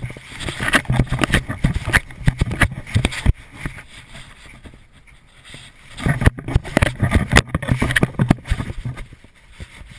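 Camera strapped to a dog knocking and rubbing against its wet fur as the dog trots through shallow water on wet sand, with its paws splashing. The noise comes in two busy stretches of about three seconds each, with a quieter pause in between.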